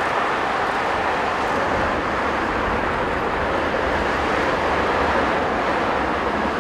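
Jet engine noise from an Airbus A380-841's Rolls-Royce Trent 970 turbofans as the airliner slows on the runway after touchdown: a steady rushing noise with a low rumble underneath.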